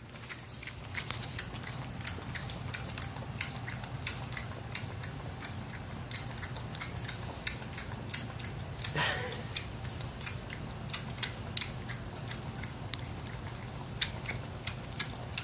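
An 8-week-old blue heeler puppy lapping water from a big dog bowl, wet tongue laps about three a second. About halfway through there is a brief falling squeak.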